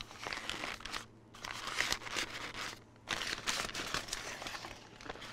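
Pink butcher paper crinkling and rustling as it is lifted and peeled back off a smoked brisket, in several bursts with short pauses about a second and three seconds in.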